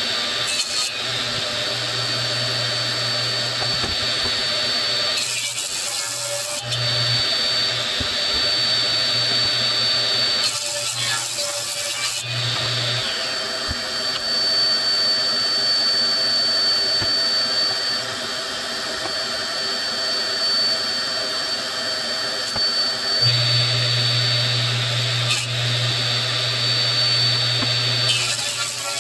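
Table saw running steadily with a constant high whine, its blade cutting through a glued-up maple cutting board in short passes, heard as brief spells of harsher cutting noise about five seconds in, about ten seconds in, and near the end.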